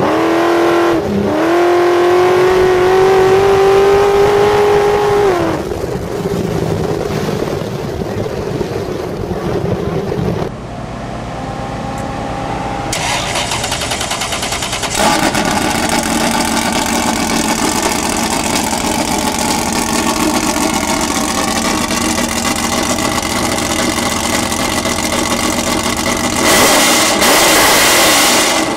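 Ultra 4 off-road buggy's 8.1-litre all-aluminium LS V8 with an X-Ram intake. It revs high with the pitch slowly climbing for the first few seconds, then, after several abrupt changes, runs steadily.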